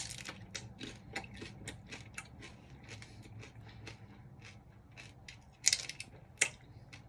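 Close-up chewing of a frozen Fruit Roll-Up wrapped around ice cream: a quick, irregular run of crisp crunches, with two louder crunches near the end.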